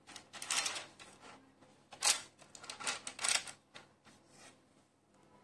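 Handling noise from a piece of jewellery being moved on its display: several short rustles and light clicks, the loudest about two seconds in.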